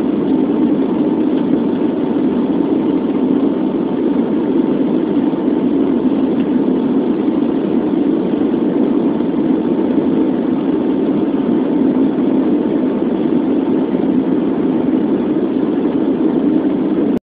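Steady engine and airflow noise inside an airliner's cabin, even and unchanging, with a faint steady tone running through it.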